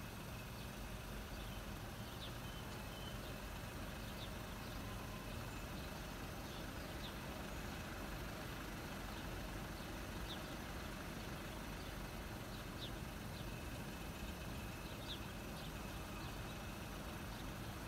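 Quiet outdoor background: a steady low rumble with faint, short bird chirps every second or two.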